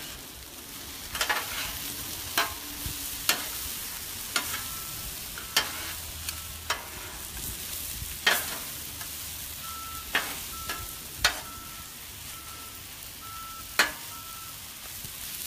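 Chicken, zucchini and squash sizzling on a Blackstone flat-top griddle as two metal spatulas toss and scrape them, with sharp clacks of the spatulas striking the steel plate every second or two.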